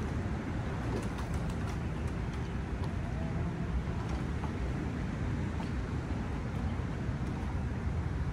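Steady wind noise on the microphone, a low rumble with no break, over wind-ruffled lake water.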